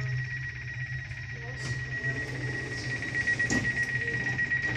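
Door-closing warning signal of a Stadler FLIRT electric train: a steady, fast-pulsing high beep sounds while the sliding passenger doors close, over the low hum of the train.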